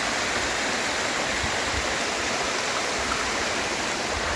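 Steady rush of water from a small waterfall and stream, an even hiss without pauses.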